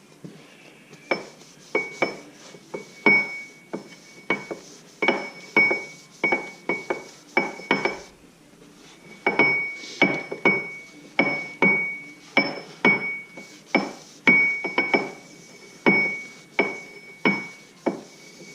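Ford 9-inch ring gear rocked back and forth against its pinion, the gear teeth clacking metal on metal with a short ring at each reversal, about two clicks a second with a brief pause midway. The free play is pretty excessive: too much ring-and-pinion backlash.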